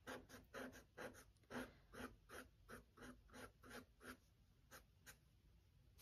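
Faint, quick strokes of a drawing tool on sketchbook paper, shading a charcoal drawing. There are about three strokes a second for four seconds, then two more a little later.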